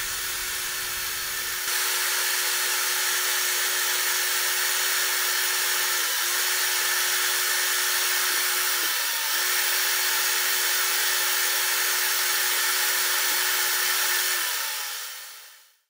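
Power drill spinning a small brass wire brush against a diecast metal toy car body, buffing off oxidisation to prepare the surface for primer. A steady motor whine with the hiss of the bristles on the metal. Its pitch dips briefly twice, and it fades out near the end.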